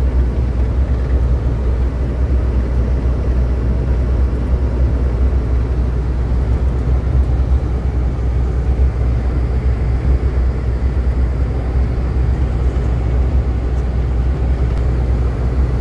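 Steady driving noise of a road vehicle at speed: an even, deep engine and tyre rumble that holds constant.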